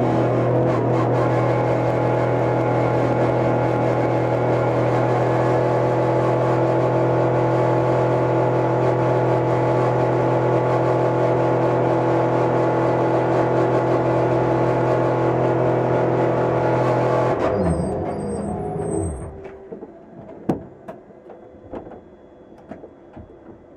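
A Porsche 911 GT3 R race car's flat-six engine, heard from inside the cockpit, running at a steady, unchanging speed, then winding down and shutting off about 17 seconds in. After that come scattered clicks and knocks in the cockpit as the driver unbuckles and gets out for the driver change.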